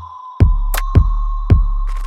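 Electronic background music with a steady kick-drum beat, about two beats a second, over a held high tone.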